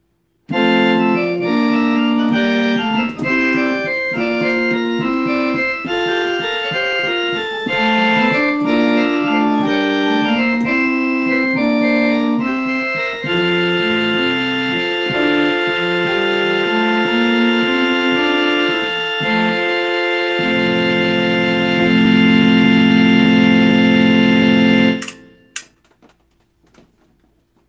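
Organ music: a lively run of quick notes, then long held chords that build to a loud, full final chord, which cuts off suddenly near the end. Two sharp clicks follow.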